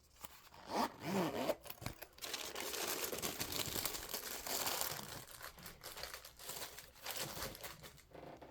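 Plastic packaging crinkling and rustling as it is handled, mostly from about two seconds in until near the end.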